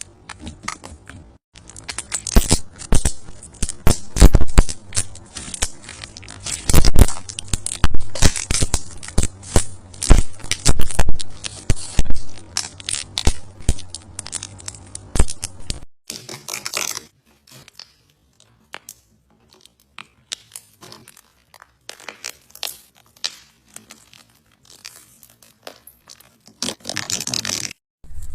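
Slime being squeezed and worked by hand, with dense crackling, popping and squelching clicks; the clicks thin out after a cut about halfway through.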